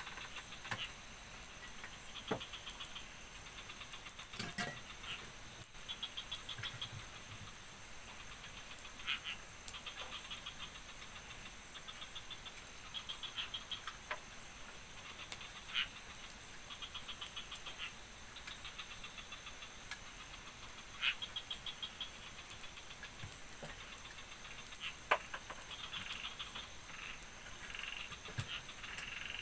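Night chorus of frogs and insects: repeated rapid pulsed trills over a steady high-pitched drone, with a few sharp clicks scattered through.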